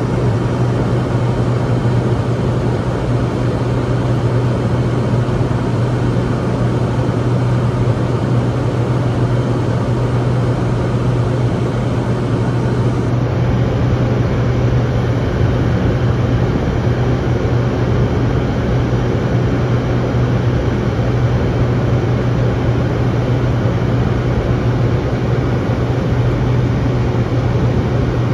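Steady cabin noise inside a Cirrus SF50 Vision Jet in a climb: an even rush with a strong, steady low hum from the airframe and its single Williams FJ33 turbofan.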